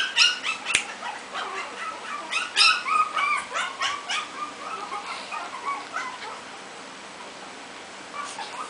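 Teacup Shih Tzu puppy giving many short, high-pitched whimpers and yips in quick succession, thinning out after about five seconds, with a couple more near the end.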